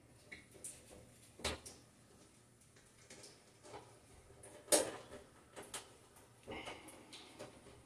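Scattered light clicks and knocks from handling the sheet-metal housing of a Broan bathroom exhaust fan overhead, with the loudest knock about five seconds in and a short scrape near the end.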